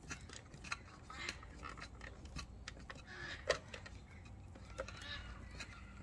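Faint clicks and rustling of fingers working short wires onto the screw terminals of a plastic doorbell mounting plate, with one sharper click about three and a half seconds in.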